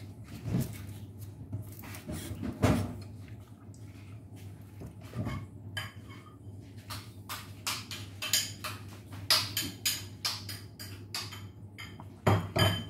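Kitchen clatter of a plate and cutlery: scattered knocks and clinks, turning into a quick run of clicks and taps in the second half, with a few louder knocks near the end.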